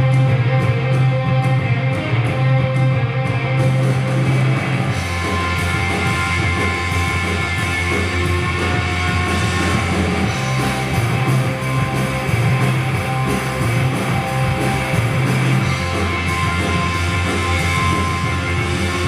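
Loud rock music with electric guitar over a bass line that holds long low notes, changing every few seconds.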